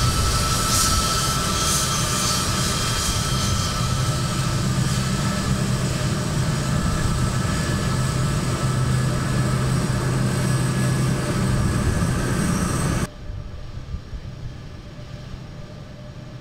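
Boeing C-17 Globemaster III's four turbofan jet engines running, a steady loud rumble with a high whine on top. About thirteen seconds in it cuts off abruptly, leaving a much quieter rumble.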